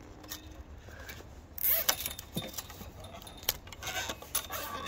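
Plastic zip ties clicking and rasping as they are threaded and pulled tight around a wooden post and a metal fence rail, with jacket and handling rustle. The loudest moment is a rustling burst about a second and a half in.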